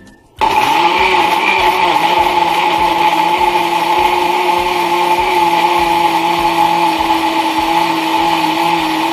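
Kenwood countertop blender switched on about half a second in and running steadily at speed, puréeing chilled mango chunks with yogurt, juice and honey into a smoothie; its whine settles slightly lower in pitch over the first couple of seconds.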